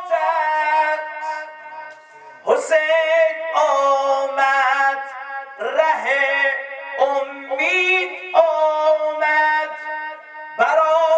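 A man singing a Persian maddahi, a religious eulogy, into a microphone. The held notes waver with vibrato and ornamented turns, in several long phrases with short breaks between them.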